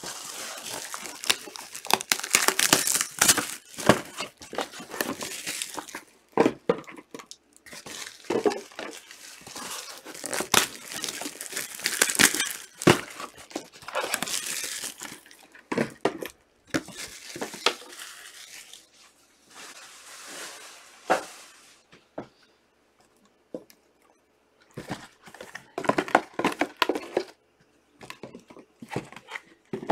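Trading card pack wrappers being torn open and crinkled by hand, in repeated bouts of crackling and ripping with small clicks and taps between them.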